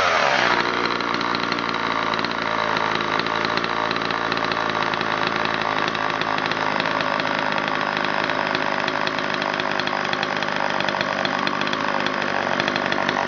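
A 1970 Homelite Super EZ chainsaw's 2.3 cubic inch two-stroke engine running. It revs briefly at the start, then settles into a steady idle, running smoothly.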